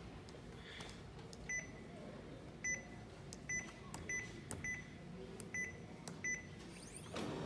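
Kyocera TASKalfa 3212i copier's touch panel beeping as keys are pressed: seven short single-pitched beeps, spaced about a second or less apart. Near the end the copier's mechanism starts running.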